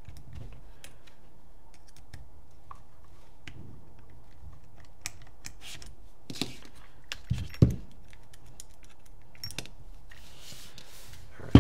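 Small clicks and light knocks of paintball marker frame and grip parts being handled and worked apart by hand, with a few louder knocks a little past the middle, the loudest about seven and a half seconds in.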